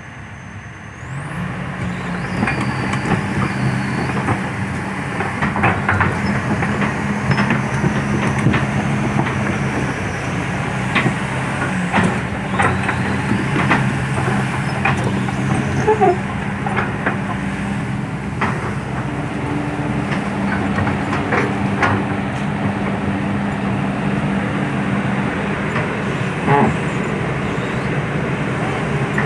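Heavy diesel machinery engine starts running about a second in and keeps a steady low drone, with scattered metallic clanks and knocks and a couple of brief squeals.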